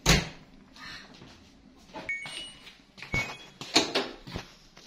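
A handful of sharp knocks and clicks in a small room, spaced irregularly, the loudest at the very start and another a little before the end, with faint brief high squeaks or chirps between them.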